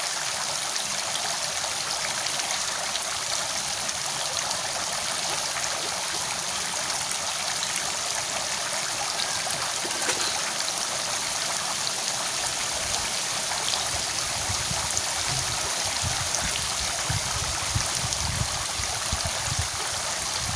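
Steady rushing of flowing water, with an uneven low rumble joining in about halfway through.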